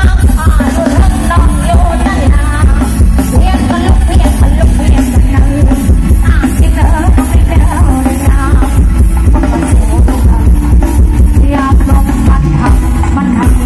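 Loud music with a singer, a steady beat and heavy bass, played from a Thai parade sound truck's speaker system.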